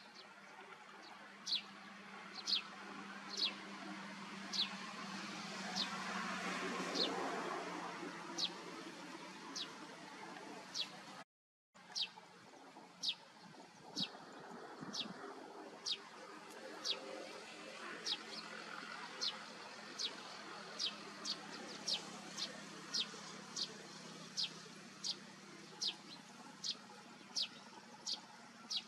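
A small bird repeating one short, high chirp that sweeps downward. The chirps come about once a second, then a little faster after a brief dropout near the middle, over a faint steady background hum.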